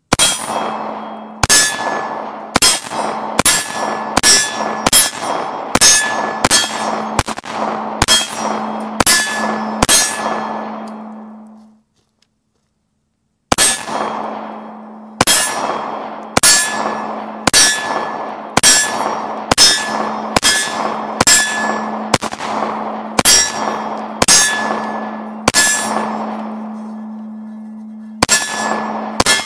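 A Glock 26 9mm compact pistol firing two strings of shots at a steady, unhurried pace, roughly one to two shots a second. Each shot rings out and fades. The strings are split by a pause of about two seconds, a little under halfway through.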